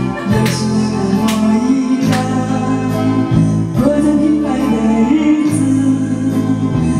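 Karaoke: a woman singing into a handheld microphone over a backing track with a steady beat, holding long notes, amplified through the room's karaoke sound system.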